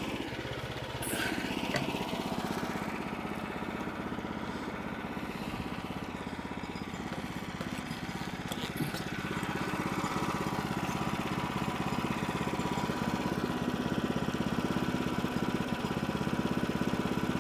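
Small engine of a sawmill idling steadily, with a few light knocks and a slight rise in level about halfway through.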